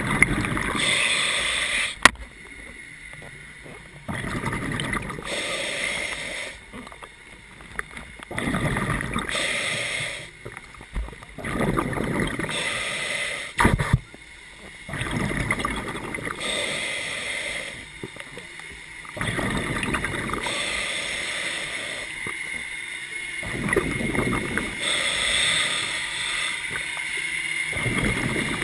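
A scuba diver breathing through a regulator underwater: surges of breath and exhaled bubbles every few seconds, with quieter gaps between them. Two sharp knocks, about two seconds in and near the middle.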